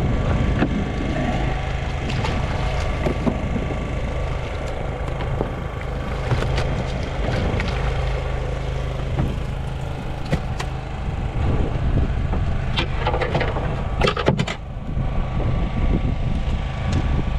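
A boat's engine running steadily, with splashing and scattered knocks as hooked fish are hauled up against the hull and landed on deck. A cluster of sharp knocks comes near the end.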